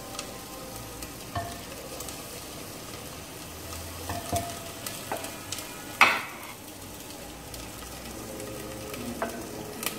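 Ginger-garlic paste and spices sizzling in ghee in a clay handi, being roasted while a wooden spoon stirs and now and then knocks against the pot. There is a steady sizzle, with one sharper knock about six seconds in.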